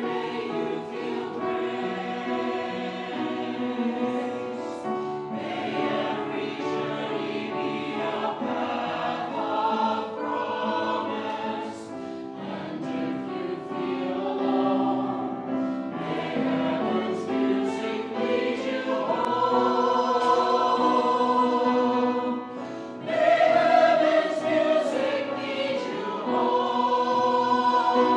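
Choir singing in parts, with sustained notes; it breaks off briefly about three-quarters of the way through and comes back louder.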